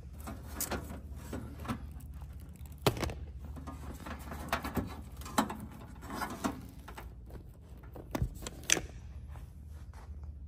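Handling of Ethernet patch cables and plastic connectors in an equipment rack: scattered clicks, taps and rustles, with several sharper knocks, the loudest about three seconds in and near the end. A steady low hum runs underneath.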